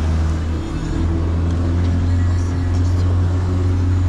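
Outboard motor driving a boat at cruising speed: a loud, steady low engine drone, with the rush of wind and water over the hull.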